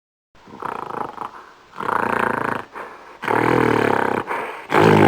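Gorilla vocalising: four low-pitched, rough calls in quick succession, each about a second long, the last two louder.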